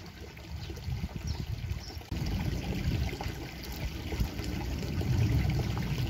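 Wind rumbling on the microphone, getting stronger about two seconds in, over a shallow stream trickling.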